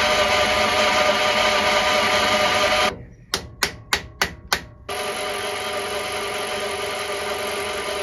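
Milling machine running, an end mill facing the top of a brass workpiece flat. About three seconds in the machine noise stops and a copper-faced mallet gives about six quick taps on the work in the vise, then the mill runs again, a little quieter.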